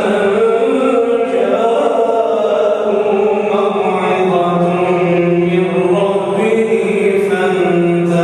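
A man reciting the Quran in a slow, melodic chant (tajwid), long held notes stepping up and down in pitch, loud and close into a microphone.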